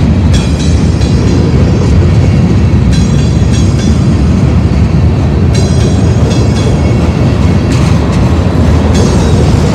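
Freight train cars rolling past close by: a loud, steady rumble of steel wheels on rail, with brief high-pitched wheel squeals coming and going several times.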